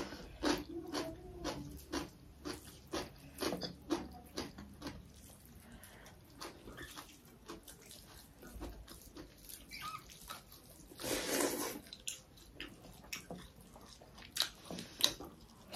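Close chewing and mouth smacking of people eating meat curry and rice: irregular short wet clicks and smacks, with a longer, noisier sound about eleven seconds in.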